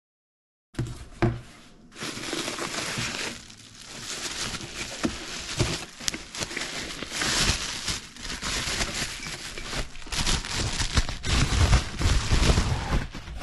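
Bubble wrap and cardboard packing crinkling and rustling as wrapped cylinders are handled and lifted out of a box. It begins after a moment of dead silence with a single knock, and heavier thumps of parts and box come near the end.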